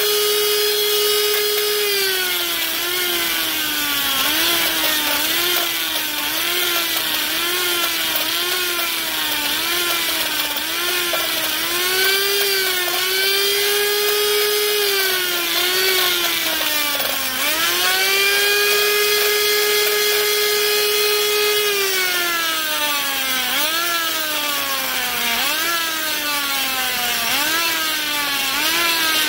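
High-speed die grinder running on a small bit in the cast-iron combustion chamber of a Chrysler 302 cylinder head, blending the sharp ledge that the valve job left around the intake valve seat. Its high whine holds steady while the bit runs free and dips in pitch and recovers about once a second as it cuts, with free-running spells about halfway through and again around two-thirds of the way.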